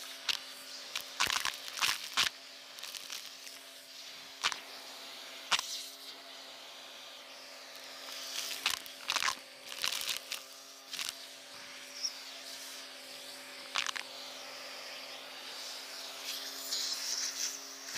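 Vacuum cleaner with a crevice tool running with a steady hum while it sucks up buttons, sequins and grit, which click and rattle irregularly as pieces are pulled into the nozzle, in clusters of several clicks.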